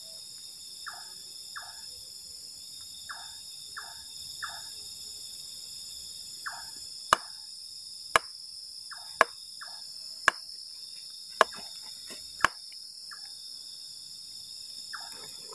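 Night insects, mostly crickets, keep up a steady high-pitched trilling. Over it an unseen animal repeats short falling chirps, often in pairs, and six sharp clicks come about a second apart in the middle.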